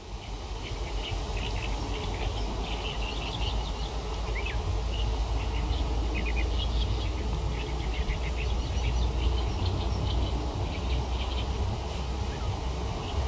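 Outdoor ambience: a steady low rumble of wind buffeting the microphone, with small birds chirping many times throughout.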